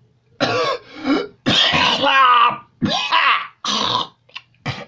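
A man coughing and hacking to clear his throat in a loud run of about six harsh bursts, the longest lasting about a second, bringing up phlegm.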